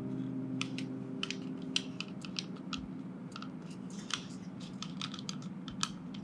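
Irregular light clicks and ticks of small plastic model-kit parts being handled and worked, with a held chord of background music dying away in the first two seconds or so.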